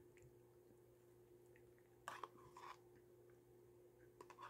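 Faint sounds of eating yogurt with a metal spoon from a plastic cup: short spoon scrapes and mouth sounds about two seconds in and again near the end, over a low steady hum.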